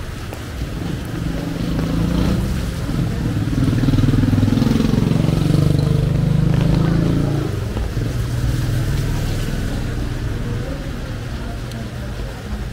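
A motor vehicle's engine passing close by, growing louder, at its loudest in the middle, then fading away, over steady street noise.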